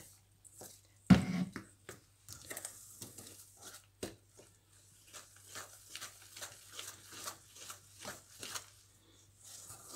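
Metal spoon stirring and scraping a stiff besan batter in a stainless steel bowl: a run of short scrapes and clicks, a few a second, with one louder knock about a second in.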